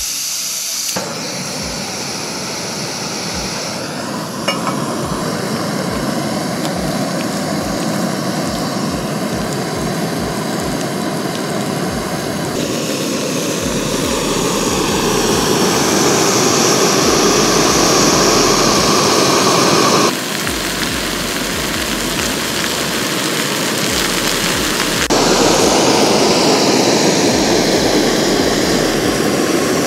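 MSR PocketRocket canister gas stove burning at full flame: the steady hiss and rush of the burner, close up. It shifts abruptly in level and tone a few times.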